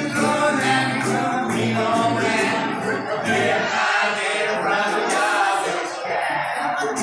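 Ukulele band playing live, several voices singing together over strummed ukuleles and a guitar. About three and a half seconds in the low, regular bass beat drops away, leaving mainly the voices and the strumming.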